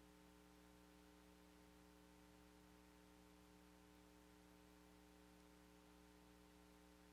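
Near silence: a faint, steady electrical hum under a light hiss.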